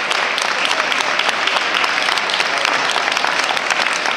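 Ringside audience applauding steadily, many hands clapping at once in a continuous patter.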